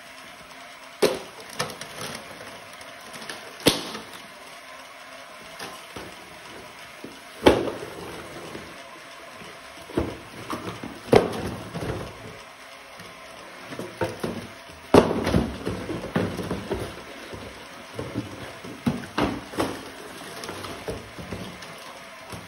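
Cardboard boxes knocking and clattering on a small mecanum-wheel conveyor module as its driven wheels carry them along. The knocks are irregular, a few seconds apart, with some louder clusters.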